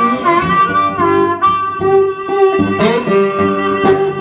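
Blues harmonica and resonator guitar playing together with no vocals: the harmonica holds and bends long notes over the guitar's plucked accompaniment.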